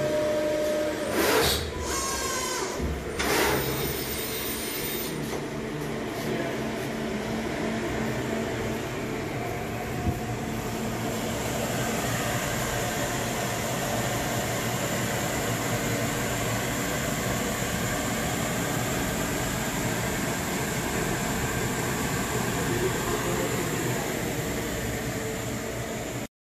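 Hybrid servo-hydraulic CNC press brake running with a steady mechanical hum. Two louder whirring surges come in the first few seconds, and a thin high whine sets in after about ten seconds.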